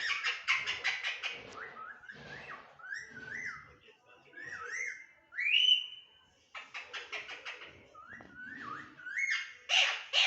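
Pet talking parrot whistling short up-and-down gliding notes, broken by bursts of harsh chattering squawks; a single rising whistle near the middle is the loudest call.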